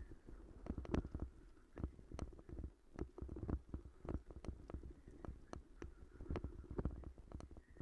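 Bicycle jolting over a rough, rutted dirt path: irregular knocks and rattles, several a second, over a constant low rumble.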